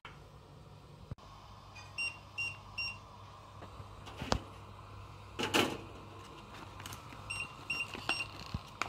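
Sous-vide immersion circulator beeping: three short high beeps, then three more about five seconds later. Between them, the loudest sound is a short crinkle of a plastic bag being handled.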